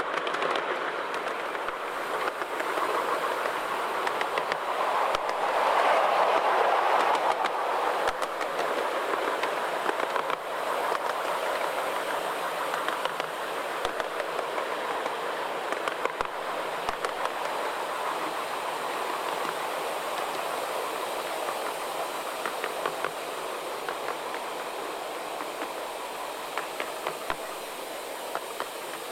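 A 7¼ in gauge miniature steam train, locomotive 5806, running along the track, heard from a passenger car. Its wheels roll steadily on the rails with scattered sharp clicks, some of them at the rail joints.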